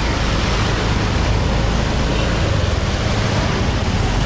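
Steady road traffic noise in a busy city street: a continuous low rumble of passing vehicles with no single event standing out.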